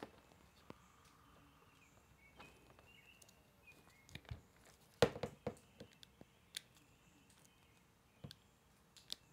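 Small scattered clicks and snaps from a hand crimping tool and a tiny wire terminal being handled and crimped. The loudest click comes about five seconds in, followed by a few quick lighter ones.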